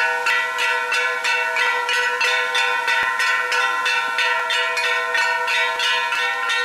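A metal bell struck rapidly and evenly, about three strikes a second, its tones ringing on between strokes.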